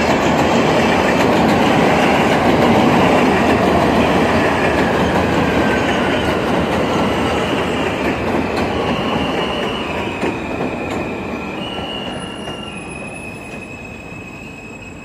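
New York City subway train running on elevated track and slowing into a station: loud wheel-on-rail noise with a whine falling in pitch, fading steadily. Steady high wheel squeals come in over the last few seconds.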